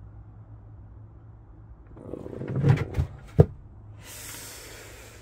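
Plastic lid being handled on a plastic filter barrel: a few low knocks, two sharp ones about a second apart near the middle, then a hand sliding across the lid with a hiss.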